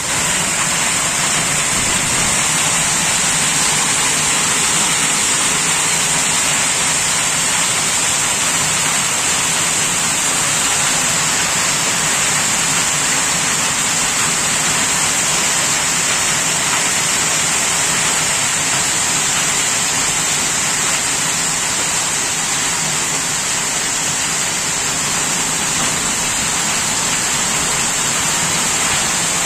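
Heavy rain pouring steadily onto grass and paving, a dense, even hiss that stays constant throughout.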